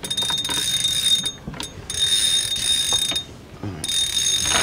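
Fishing reel's drag buzzing as line is pulled off it by hand, in three pulls with short pauses between.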